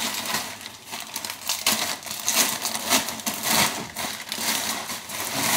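Plastic mailer bag being ripped open and handled, a dense, irregular crinkling and rustling of plastic.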